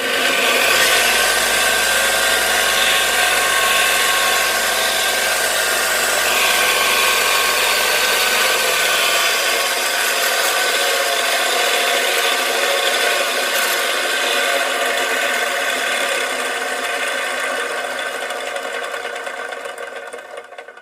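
Parkside combined bench grinder and belt sander switched on and running unloaded, its motor spinning the grinding wheel and sanding belt with a steady whine and hiss. It comes up to speed in the first second, and the level sinks slowly over the last few seconds before it stops near the end.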